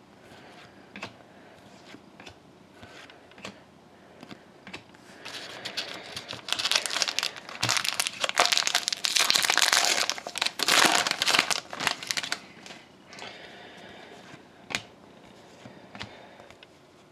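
Foil wrapper of a trading-card pack crinkling loudly for several seconds in the middle as it is torn open and crumpled. Before and after are soft clicks and ticks of cards being handled.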